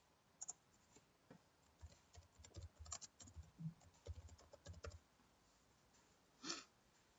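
Faint computer keyboard typing: a run of quick key taps for about four and a half seconds, then one louder click about six and a half seconds in.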